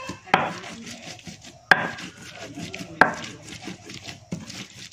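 Raw chilies being ground by hand in a hand grinder: three sharp knocks about a second and a half apart, with a rough scraping and rubbing between them.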